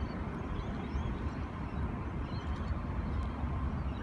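A steady low rumble, with small birds chirping faintly and intermittently above it.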